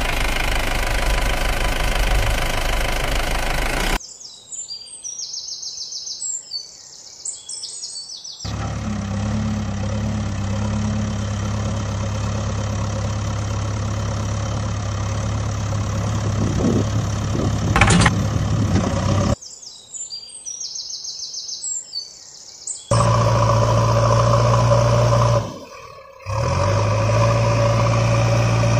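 Engine running steadily, broken off abruptly twice for a few seconds of bird chirping, about four seconds in and again about nineteen seconds in. There is a sharp knock about eighteen seconds in, and after the second chirping the engine comes back louder and deeper.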